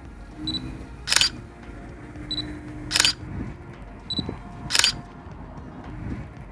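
Canon EOS Rebel XS (EOS 1000D) DSLR going through three exposures. Each time the short high autofocus-confirmation beep sounds, and a moment later the shutter and mirror clack as the picture is taken.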